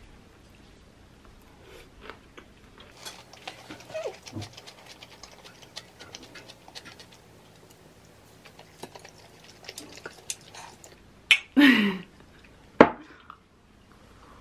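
Close-up eating sounds: a person chewing mouthfuls of pan-fried shrimp and chive pancake, with many small wet clicks. Near the end there is a short vocal sound with a falling pitch, then a single sharp click.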